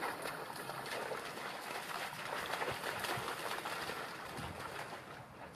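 Steady, faint crackling rustle with trickling water, from movement through flooded dead reeds and shallow water.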